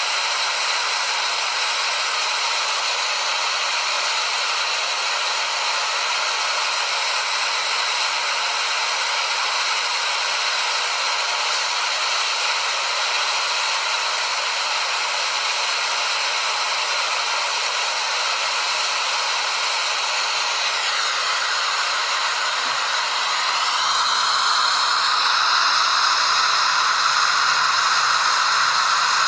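Waterfall rushing, a steady hiss of falling water; its tone shifts and it grows a little louder about three quarters of the way in.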